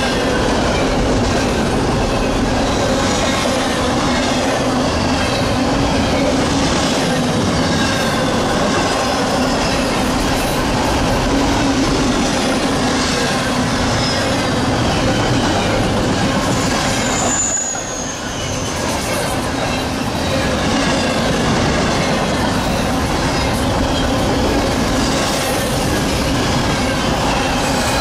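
Double-stack container train's well cars rolling past close by: a steady rumble and rattle of steel wheels on rail, with thin high wheel squeals coming and going, one clear falling squeal a little past halfway. The noise dips briefly just after it.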